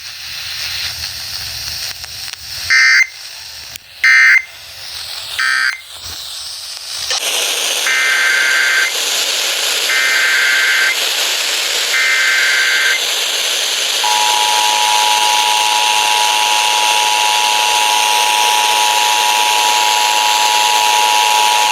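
Emergency Alert System data tones over a steady radio hiss. First come three short end-of-message bursts, closing one warning. Then three buzzy SAME header bursts, each about a second long and a couple of seconds apart, open the next warning, followed from about 14 s by the steady two-tone EAS attention signal.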